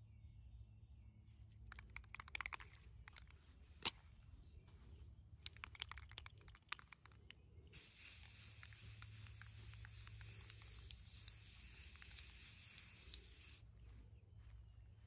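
A run of short clicks and rattles, then an aerosol can of satin spray paint hissing steadily for about six seconds as it sprays a metal patio table, cutting off near the end.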